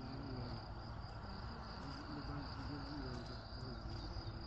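Crickets trilling in one steady, unbroken high note.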